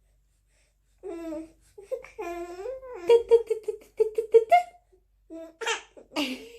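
Three-month-old baby cooing in drawn-out high-pitched sounds, then laughing in a quick run of short pulses, about six a second, followed by a few short breathy gasps near the end.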